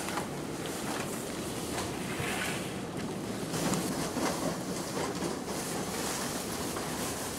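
Steady rushing of the battery blower fan that keeps an inflatable dinosaur costume inflated, with the costume's nylon rustling and a few light knocks.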